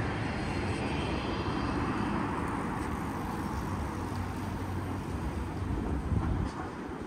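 Steady city street noise: a low traffic rumble from passing vehicles.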